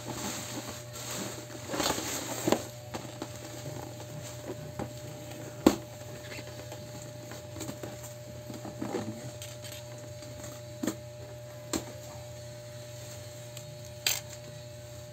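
Bubble wrap rustling as it is pulled off a cardboard box, then hands handling the box, with several sharp taps and clicks of cardboard, the loudest about five and a half seconds in. A steady low hum runs underneath.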